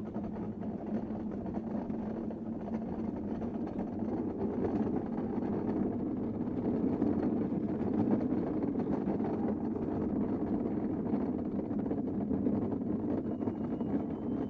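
Wheels of an engineless downhill kart rolling over asphalt: a steady rumble that grows a little louder around the middle of the ride.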